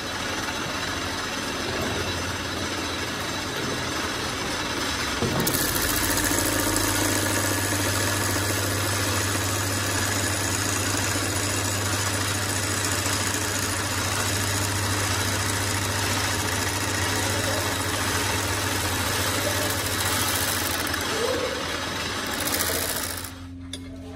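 Metal lathe running, turning a steel part under the cutting tool: a steady machine hum with the dense noise of metal cutting. It grows louder about five seconds in and drops away sharply near the end.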